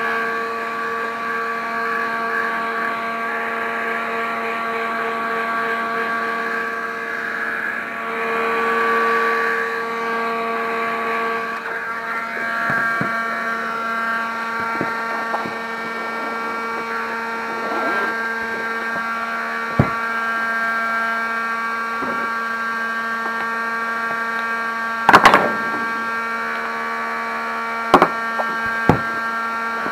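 Heat gun running with a steady fan-motor whine and rush of air, used to warm and soften the vinyl seat cover so it can be stretched; the sound swells for a few seconds about a third of the way in. A few sharp clacks come in the second half, the loudest cluster near the end.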